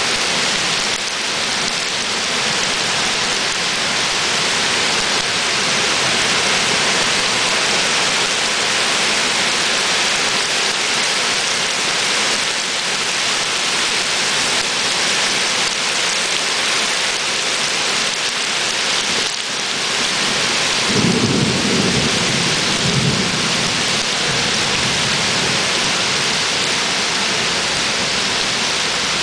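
Torrential thunderstorm rain pouring steadily onto flooded paving, with a low rumble of thunder for a few seconds about two-thirds of the way through.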